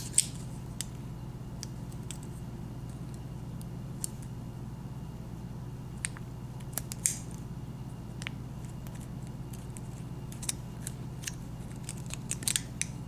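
Scattered light clicks and scrapes of a thin aluminum can shim being twisted around a padlock's steel shackle to push back the spring-loaded locking tab, over a steady low hum.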